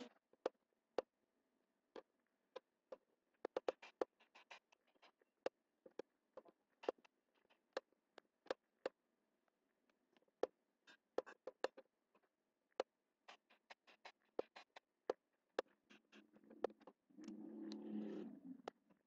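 Computer mouse buttons clicking: faint, sharp single clicks at irregular intervals, sometimes several in quick succession. Near the end there is about two seconds of louder scraping as the mouse is dragged across the desk.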